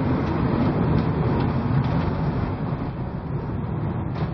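Storm wind rumbling steadily on the microphone, mixed with the rush of heavy seas breaking over a cruise ship's bow, with a brief knock near the end.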